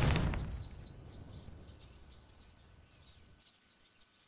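A hardcover Bible dropping onto a concrete path: one heavy thud right at the start, followed by a low rumble that fades out over about three seconds. Birds chirp faintly throughout.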